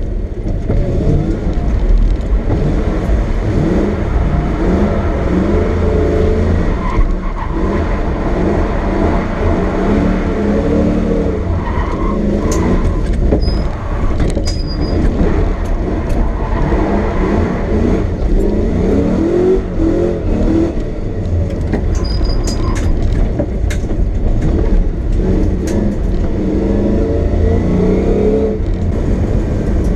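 Lexus SC400's 1UZ V8 engine revving up and down repeatedly through drift runs, with scattered sharp clicks and knocks.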